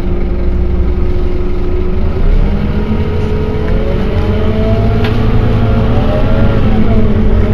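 Scania K230UB bus on the move, heard from on board: its DC9 diesel engine and ZF six-speed automatic gearbox running under way. The engine note holds steady, climbs about two seconds in, then rises and falls a few times.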